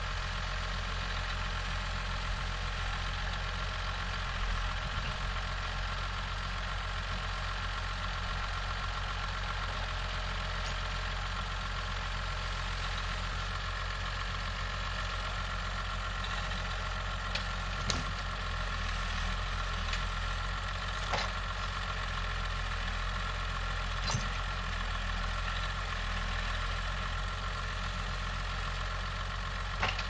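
John Deere 3650 tractor's diesel engine running steadily while it powers a hydraulic timber crane loading logs. A few sharp knocks come in the second half as logs are set onto the trailer.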